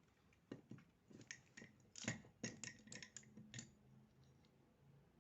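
Fiber-optic cleaver being worked to re-cut the drop cable's fiber after a failed first cleave: a quick run of sharp clicks and snaps over about three seconds.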